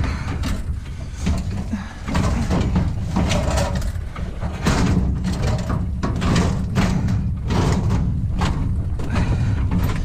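Heavy scrap metal being shoved and shifted into place while loading: repeated knocks, clanks and scrapes over a steady low rumble.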